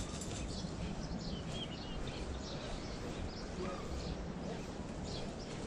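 Steady outdoor background noise with a low rumble, and a few faint, short bird chirps.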